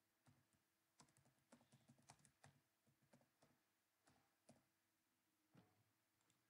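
Faint, irregular clicking and tapping: a quick run of about a dozen clicks between one and two and a half seconds in, then a few scattered ones. A faint steady hum runs underneath.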